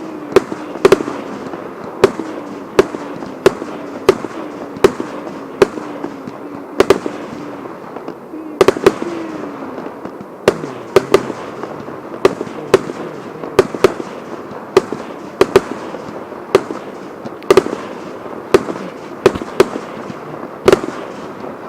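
Fireworks going off: a long run of sharp bangs at uneven intervals, often one to three a second, over a steady crackle.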